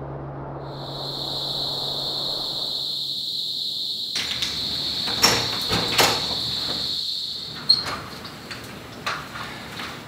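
Insects trilling in one steady high note, joined about four seconds in by rustling and a few sharp knocks of a wooden door being opened.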